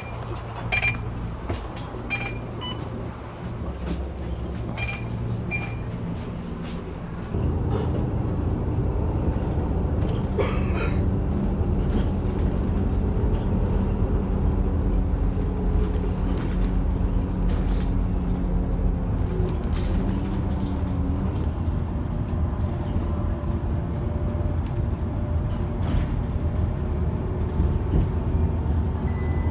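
Bus engine heard from inside the cabin, running steadily with a few short high beeps in the first few seconds. About seven seconds in the engine grows louder as the bus gets under way, and its pitch shifts about twenty seconds in.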